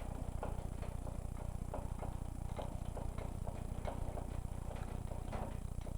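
Gear-head engine lathe turning its spindle with a test bar in it, a steady low hum with faint ticks about twice a second, while runout is read on the dial indicators.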